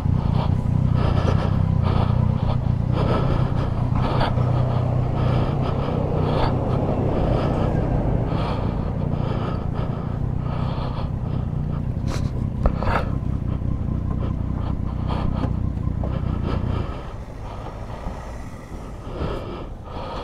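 Yamaha Tracer 9 GT motorcycle's three-cylinder engine running with a steady low drone that falls away sharply about seventeen seconds in.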